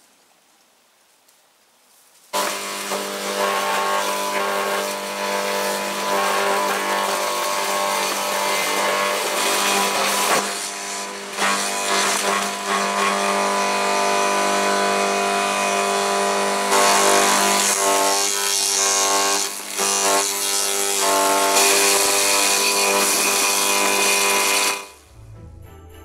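Electric garden shredder running at one steady pitch while chipping cut willow stems, the motor's hum under a harsh chopping noise that swells and dips as stems are fed in. It starts about two seconds in and stops shortly before the end.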